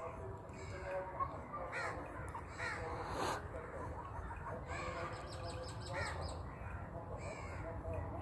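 Crows cawing repeatedly, a short harsh call about every second, some overlapping, over a low steady rumble.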